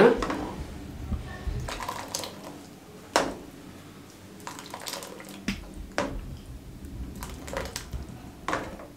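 Thick soup being ladled from a pan into a bowl. A pour of liquid at the very start is followed by a scattered handful of short splashes and clinks from a metal ladle in the pan, the sharpest one about three seconds in.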